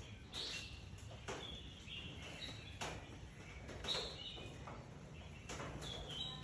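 Faint sounds of a baby monkey suckling on a milk bottle: a few scattered soft clicks, with brief high bird chirps now and then.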